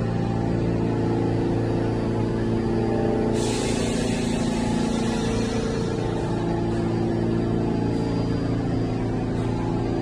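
R46 subway car standing in the station with its doors open, its onboard equipment running with a steady hum made of several low tones.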